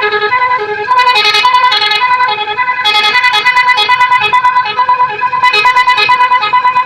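Telolet horn, a multi-tone bus horn, playing a tune of loud pitched notes that switch several times a second with a fast warble.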